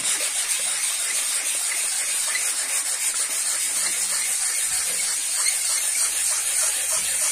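400-grit wet sandpaper on a sanding block scrubbing in circles over a wet aluminium motor clutch cover: a steady wet rasping hiss.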